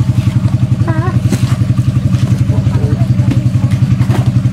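A vehicle engine running steadily with a fast, even throb, with a brief voice-like call in the background about a second in.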